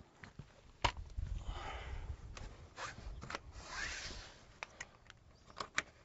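Rustling and scraping handling noise with a low rumble, a sharp click about a second in, and a few light clicks near the end as plastic hinge caps are pressed back onto the door hinges.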